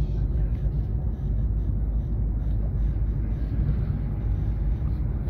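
Steady low rumble inside the passenger cabin of an MTR Express Stadler FLIRT electric train running at speed on the line.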